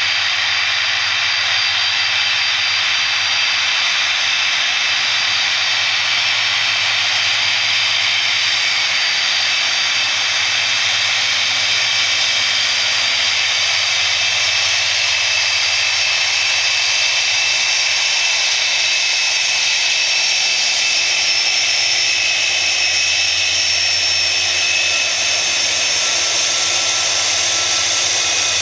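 Rolls-Royce RB211 turbofans of a Boeing 747-400 freighter running on the ground: a steady, husky, fairly high 'shaaa' hiss with high whining tones over it.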